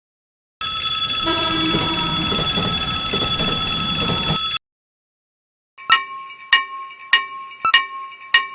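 About four seconds of a steady, noisy sound effect with several high ringing tones, then, after a short silence, a Japanese railroad crossing warning bell starting up: evenly spaced 'kan-kan' dings, about one and a half a second.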